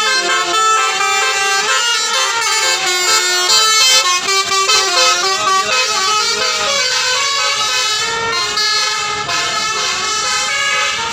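Bus telolet basuri horns playing a tune: several loud, overlapping horn tones stepping from note to note without a break.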